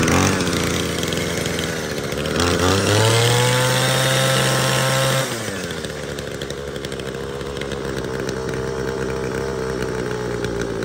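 Homelite 25cc two-stroke string trimmer engine running on test. It idles, revs up about two seconds in, holds high for about three seconds, then drops back to a steady idle.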